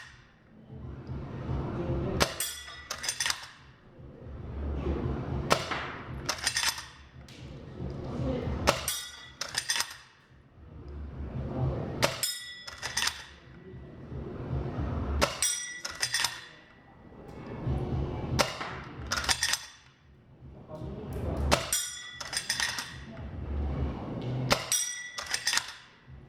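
Spring-powered airsoft replica of the Type 38 Arisaka bolt-action rifle fired over and over, about one shot every three seconds. Each shot comes with the clacks of the bolt being worked, and most are followed by the short metallic ring of a steel target plate being hit.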